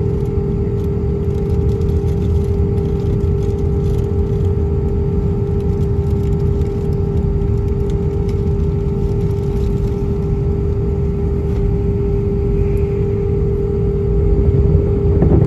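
Airbus A320-200 cabin noise during taxi: the jet engines at idle give a steady low rumble with a steady hum, heard from inside the cabin over the wing. It swells slightly near the end.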